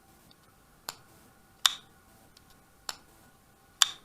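Sharp metallic clicks from a Real Steel T101 Thor flipper folding knife being snapped open and shut, four clicks in two pairs. In each pair a softer click is followed by a louder snap.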